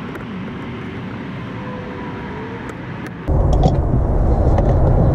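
A steady low rumble of background noise, which suddenly becomes much louder and heavier about three seconds in.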